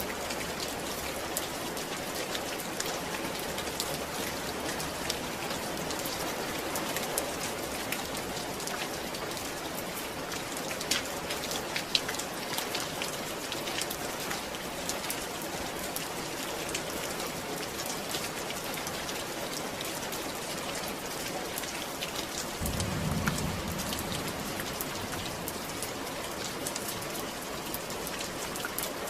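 Steady rain falling, with many individual drops ticking sharply through the hiss. A brief low rumble comes in about 23 seconds in and fades within a second or two.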